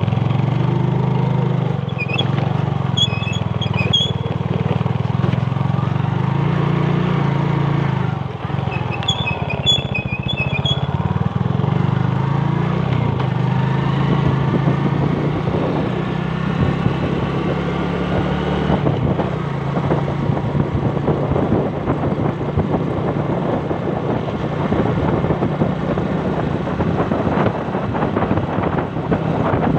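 Small motorcycle engine running under way, heard from the rider's position, with road and wind noise; the engine pitch rises in the middle stretch as it picks up speed. Short groups of high-pitched chirps sound near the start and again about ten seconds in.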